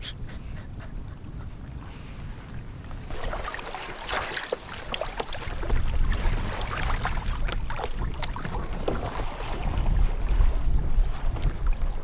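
Wind rumbling on the microphone, growing stronger about halfway through, with scattered knocks and clatter as gear and paddles are handled in the canoes.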